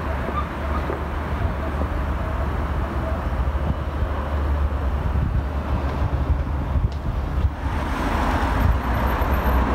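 Outdoor city ambience: a steady low rumble of distant road traffic, growing a little louder near the end.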